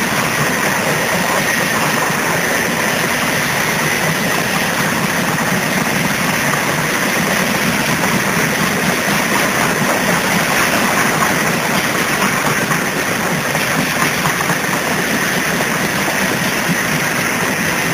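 Covered hopper cars of a freight train rolling past close by: the steady noise of steel wheels running on the rails, with a faint steady high tone over it.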